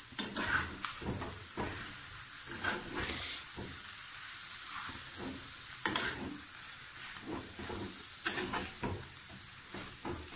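Slotted metal spatula stirring and scraping a mashed potato and onion filling in a metal frying pan, with oil sizzling steadily underneath. Irregular clicks of the spatula on the pan, a few sharper ones about six and eight seconds in.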